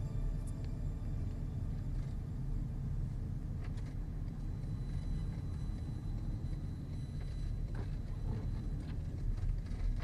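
Car cabin noise: the steady low rumble of the vehicle's engine and road noise, picked up inside the moving car, with a few faint clicks.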